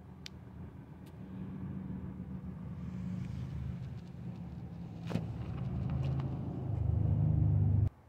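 A motor vehicle's low engine rumble, growing steadily louder and cutting off abruptly near the end, with a sharp click about five seconds in.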